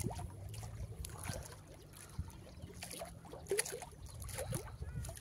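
Small waves lapping and splashing against a concrete lake bank, with scattered little splashes over a low steady rumble.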